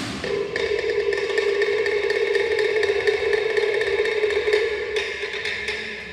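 Wooden percussion played in a rapid, continuous roll, the fast strikes blending into a steady pitched ring.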